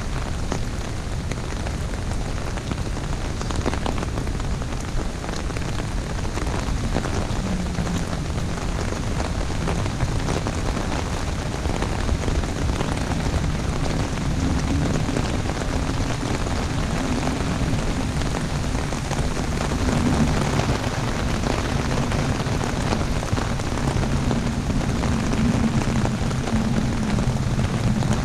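Heavy rain drumming steadily on an umbrella, dense with individual drop hits. Through the second half a low wavering hum grows in beneath the rain.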